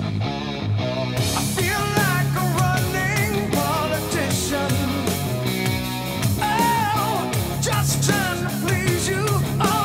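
Rock song with a singer and guitar over a steady bass line.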